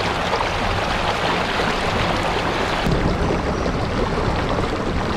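Steady rushing wash of flowing river water, an even noise with no clear pitch.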